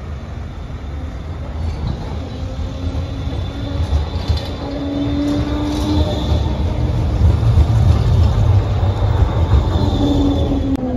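Electric low-floor tram arriving along the rails and drawing up close by, its rumble growing louder as it nears. A faint high wheel squeal runs through the middle, and near the end the traction motors whine down in pitch as it brakes to a stop.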